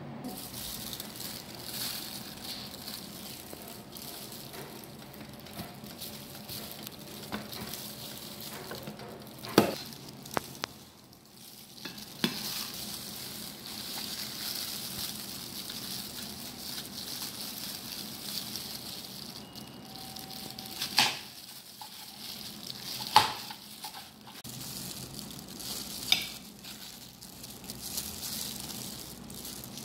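Knife cutting apple and grapes on a plastic cutting board, with a handful of sharp taps as the blade meets the board, over a steady hiss.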